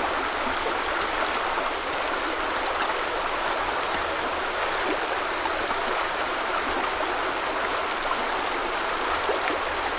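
Shallow river running over rocks in small rapids: a steady, even rush of flowing water.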